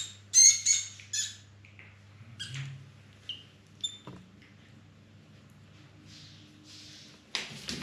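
A mouse squeaking shrilly: a quick run of loud squeaks in the first second, then scattered fainter squeaks. Near the end there is a short scrabbling rustle.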